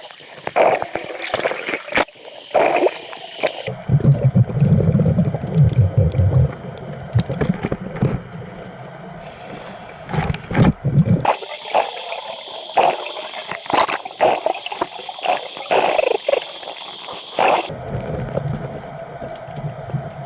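Underwater sound of a scuba diver's breathing, with exhaust bubbles gurgling in spurts. Scattered clicks and knocks run through it, and the sound shifts abruptly several times.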